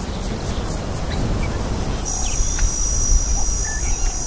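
Open-country field ambience: a steady noisy background, with a high, even insect trill coming in about two seconds in and a few faint short chirps.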